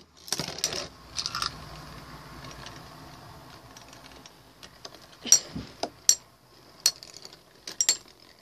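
Two metal Beyblade tops, Phantom Orion and L-Drago, spinning in a plastic stadium with a faint steady whirr. A handful of sharp clicks come in the second half as the tops strike each other.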